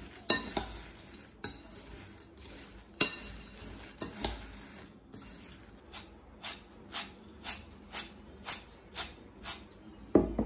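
Metal spoon stirring crisp fried boondi in a ceramic bowl: scraping and clinking with sharp clicks, then a run of light clicks about twice a second in the second half.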